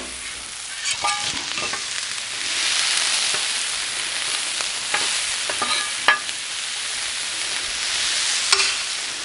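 Diced onions and bell peppers sizzling steadily on a Blackstone gas flat-top griddle, with a few short sharp taps scattered through.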